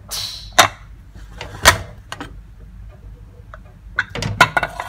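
Aluminium Prestige pressure cooker being opened: a short hiss of steam at the start, then scattered metal clicks and knocks as the lid is worked loose and lifted off, the loudest about two seconds in and a quick cluster near the end.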